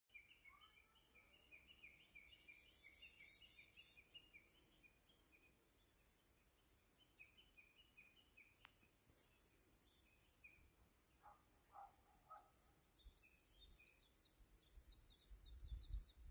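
Faint outdoor birdsong: small birds chirping in quick repeated series of high notes, with a low rumble swelling near the end.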